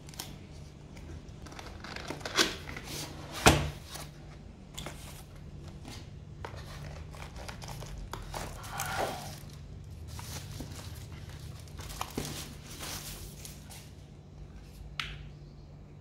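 Unboxing a Keychron K4 keyboard: a seal sticker on the cardboard box tearing and the box being handled, with a sharp knock about three and a half seconds in. Later the plastic wrap around the keyboard crinkles as it is peeled back. A steady low hum sits underneath.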